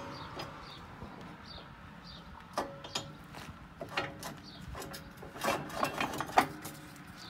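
Metal square tube of a crop-divider hoop being pushed into its steel mounting bracket: a series of metallic knocks and clanks, a few close together near the end, with a faint ring after them.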